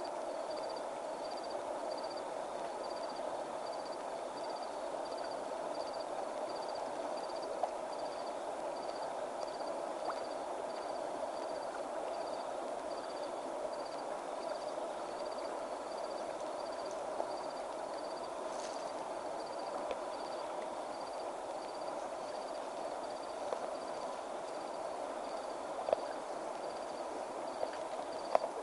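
A porcupine feeding, with a few scattered sharp crunching clicks from its gnawing, over a steady night chorus of insects in which a short high chirp repeats about twice a second.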